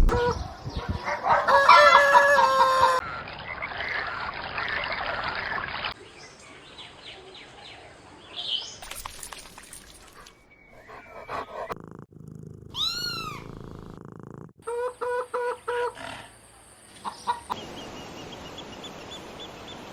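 Chickens calling in a series of short spliced clips: the loudest is a long pitched crow from a rooster near the start, and later comes a quick run of short repeated calls.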